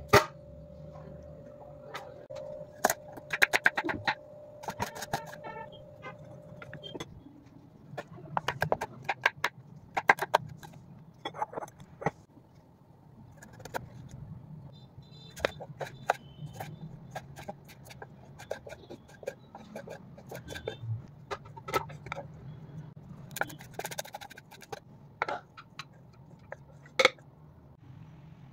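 Kitchen food prep: a knife cutting on a wooden chopping board, with produce and utensils set down on a plastic tray, making irregular knocks, clicks and clinks over a faint steady hum.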